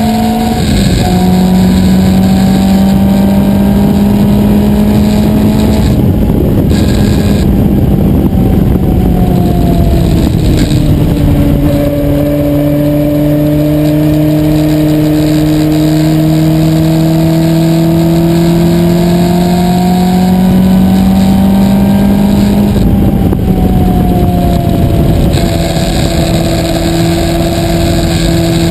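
Onboard sound of a Lola Mk1 sports racer's Coventry Climax four-cylinder engine running under load, its note climbing slowly and dropping sharply three times: about a second in, a third of the way through and near the end. Wind rushes over the open cockpit throughout.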